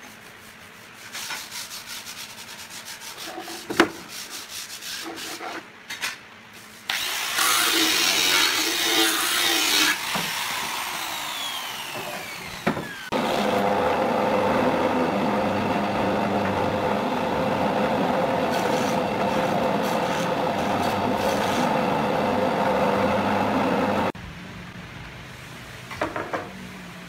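Electric wood jointer-planer running steadily for about ten seconds as a board is fed across its cutterhead. Before it, a loud burst of machine noise dies away with a falling whine. Around these are quieter scraping and a few sharp knocks from wooden door panels being handled and fitted.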